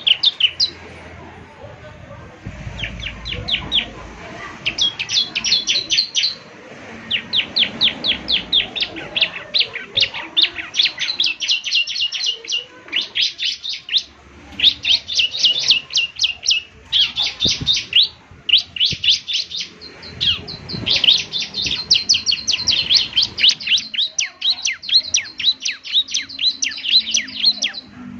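Bar-winged prinia (ciblek) singing: rapid runs of high, downward-sweeping notes, several a second, in bursts of one to two seconds with short breaks between them.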